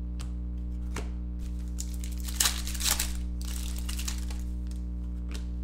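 Trading-card pack wrapper crinkling and tearing as it is opened and handled, in several short bursts, over a steady low hum.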